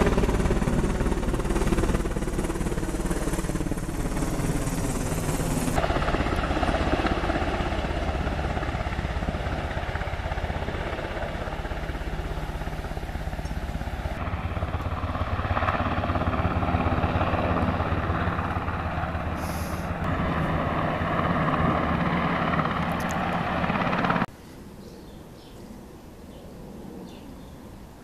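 Helicopter flying overhead, a loud, steady rotor and engine noise whose pitch falls over the first several seconds as it passes. It cuts off abruptly about 24 seconds in.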